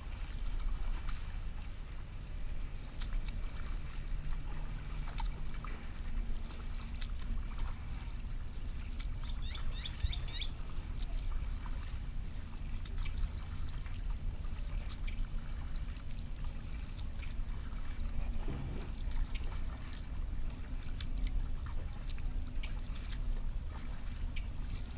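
Kayak paddle strokes: the blades dipping into calm lake water and dripping, with small splashes and knocks against a steady low rumble. A short high warbling chirp sounds about ten seconds in.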